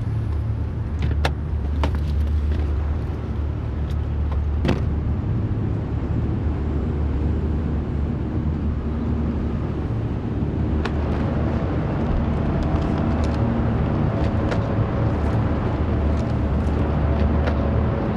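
Car engine idling with a steady low rumble, with a few sharp clicks in the first five seconds.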